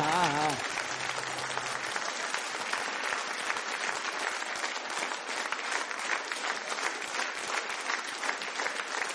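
A man's last held sung note, wavering with vibrato, ends about half a second in, with a low instrument note under it until about two seconds in. Then a live audience applauds steadily.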